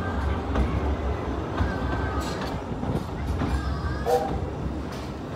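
Narrow-gauge train running slowly over jointed track, with a steady low rumble and wheel clatter.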